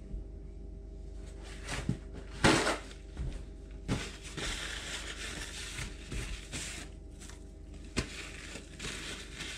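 Paper towel rustling and rubbing over a wooden chopping board, with a few knocks on the board and one loud, short rustle about two and a half seconds in, over a low steady hum.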